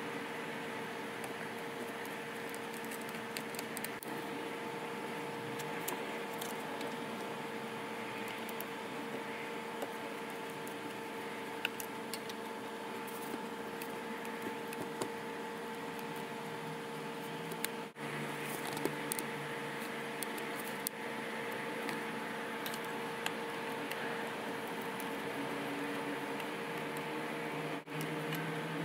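A steady hum with two held tones, with faint small clicks and taps scattered throughout. The sound cuts out briefly twice, about eighteen seconds in and near the end.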